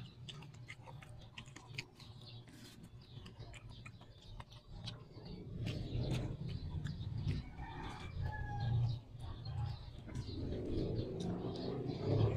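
Close eating sounds, chewing and lip smacks, from eating rice and chicken by hand. A domestic cat meows for food in the second half, with short pitched calls about eight seconds in.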